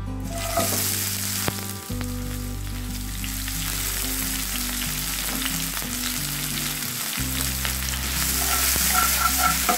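Sliced shallots, garlic and bird's-eye chillies dropped into hot cooking oil in a wok and sizzling as they fry. The sizzle starts all at once and grows louder, with a spatula stirring and scraping near the end.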